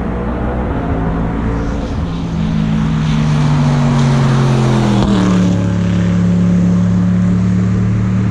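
GT3 race car engine at racing speed passing close by, its pitch sliding down and then dropping sharply as it goes past about five seconds in, then holding steady at a lower pitch as it pulls away.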